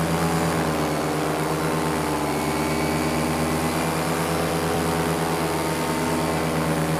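Paramotor engine and propeller running steadily under power in flight, an even, unchanging drone as the pilot begins his climb.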